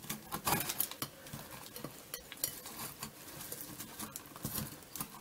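Irregular small clicks, taps and rustles as a wire-wrapped bundle of twigs is pushed down through a plant's leaves into a tin inside a glass vase.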